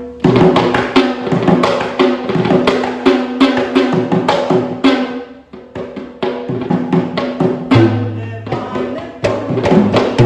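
Sri Lankan folk dance music starts suddenly: fast, dense hand-drumming over a steady held tone, with a low sustained note joining near the end.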